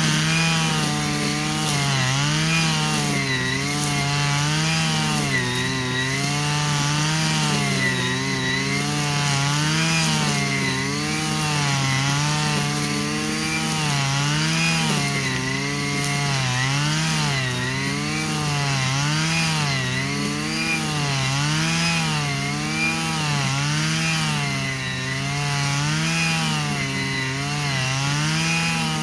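Stihl FS 120 brushcutter's small two-stroke engine running on its own, its speed rising and falling in a steady cycle about every second and a half, hunting rather than holding an even speed.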